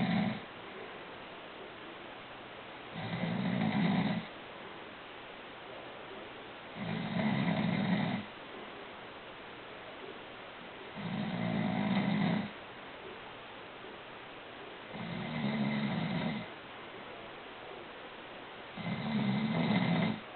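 A sleeping person snoring in a slow, regular rhythm, about one low snore every four seconds, each lasting a little over a second.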